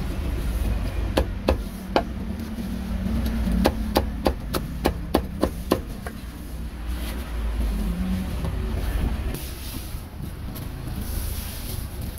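Meat cleaver chopping meat on a thick wooden chopping block: about a dozen sharp strokes in quick succession in the first half, over a low rumble of traffic.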